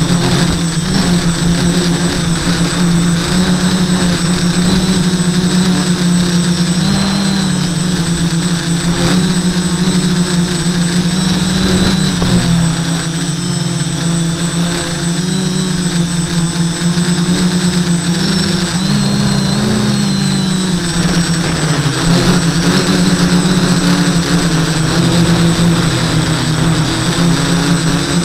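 Quadcopter's four brushless motors (Sunnysky 980 kV) and propellers buzzing in flight, a steady pitched hum that shifts with throttle and dips briefly about 12 seconds in and again around 19 to 20 seconds in.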